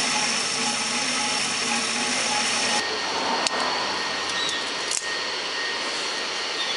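Horizontal band saw with a 3 hp motor running, its blade cutting through a thick metal tube: a steady machine hum and hiss. About three seconds in the sound shifts and thins, and a couple of sharp clicks follow.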